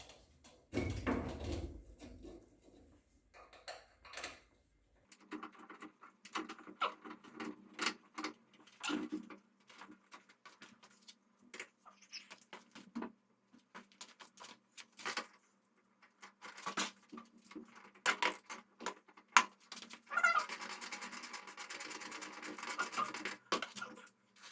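Workshop handling noises: a string of short clicks and knocks of parts and tools. Near the end comes a sustained high, squeal-like pitched sound lasting about four seconds.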